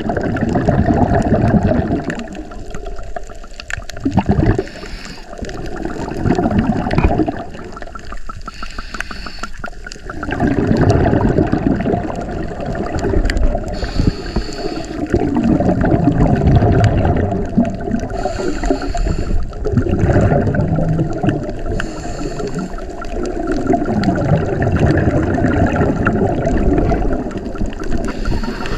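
Scuba diver's breathing heard underwater through the regulator: swells of exhaled bubbles gurgling every few seconds, with quieter gaps between breaths.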